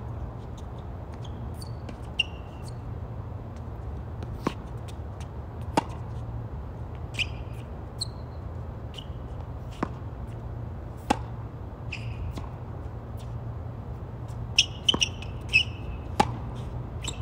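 Tennis ball struck by rackets and bouncing on a hard court during a rally: sharp pops every second or two, with a quick run of several near the end, over a steady low hum.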